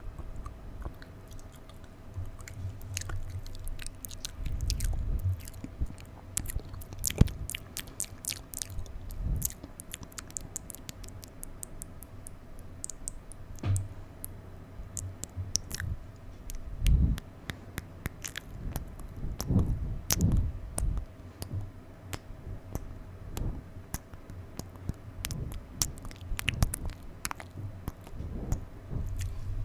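Close-microphone ASMR mouth sounds: irregular wet tongue clicks, lip smacks and slurping pops, with a few low thumps of breath or handling against the microphone.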